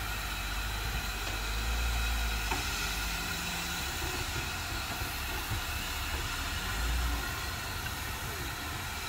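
Steam locomotive K163, a Victorian Railways K class 2-8-0, standing with a steady hiss of steam, with wind buffeting the microphone in gusts.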